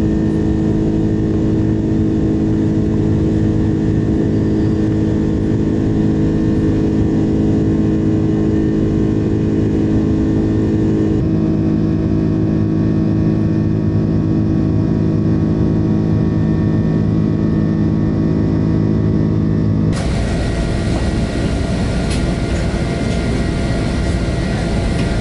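Airbus A330-300 jet engines during the climb after takeoff, heard inside the cabin: a steady drone with a deep hum made of several fixed tones. About twenty seconds in it changes to a broader, even rush of cabin noise with less hum.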